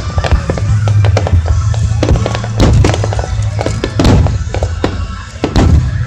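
Starmine fireworks barrage: a rapid run of shells bursting with sharp bangs and crackles, a few heavier booms ringing out about two and a half, four and five and a half seconds in, over music played for the display.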